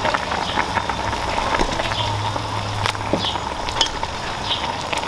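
Seafood-boil broth boiling in a large pot over an outdoor propane burner, a steady bubbling hiss, with scattered light clicks of metal tongs against crab and lobster shells.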